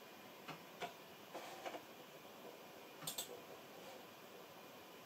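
Faint clicks of a computer mouse button: a few light clicks in the first second and a half or so, then a sharper press-and-release click about three seconds in.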